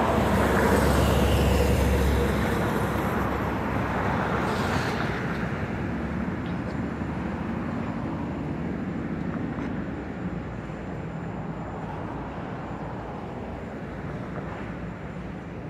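Street traffic: a vehicle passes close by at the start, loudest in the first couple of seconds, and its noise slowly fades away.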